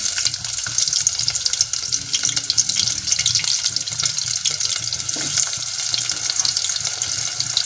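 Sliced onions sizzling in hot oil in a pan, a steady crackle with many fine pops.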